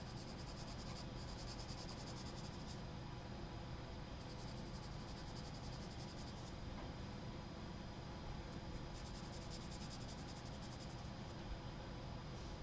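Charcoal pencil hatching on sketchbook paper: three spells of quick, even back-and-forth scratching strokes, each two to three seconds long, over a faint steady low hum.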